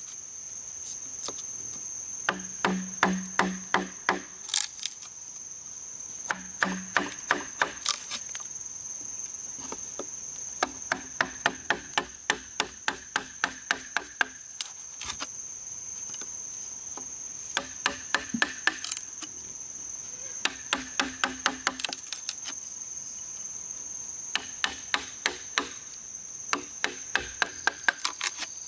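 Knife blade being knocked into the wall of a fresh green bamboo tube with a wooden mallet, cutting a hole: runs of hollow, ringing knocks about four a second, several bursts of a few seconds each. A steady high-pitched insect drone runs underneath.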